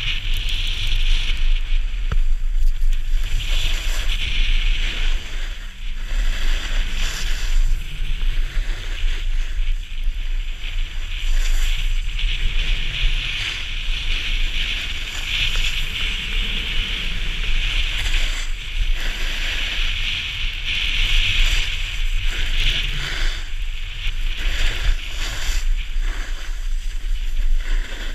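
Edges of the camera-wearer's board or skis scraping and hissing over firm, packed snow, swelling and fading in surges with each carved turn, over a low wind rumble on the microphone.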